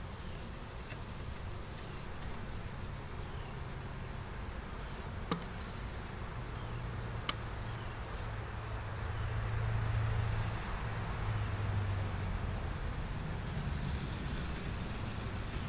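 Honey bees of a queenless colony buzzing in a steady low hum over the open hive's frames, swelling louder a little past the middle. Two sharp clicks about two seconds apart, near the middle, from the metal hive tool against the wooden frames.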